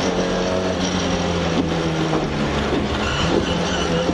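Ford Escort RS2000 Mk2 rally car's four-cylinder engine running hard, heard from inside the cabin with steady road and tyre noise, as the car slows from high speed.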